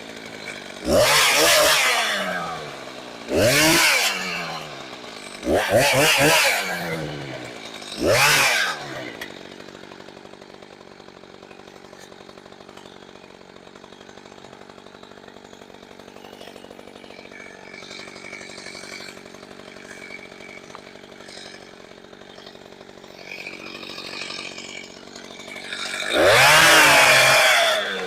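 Gas chainsaw engine revved in four short blips about two and a half seconds apart, then idling steadily, then revved hard once more near the end. The saw is being test-run after a repair.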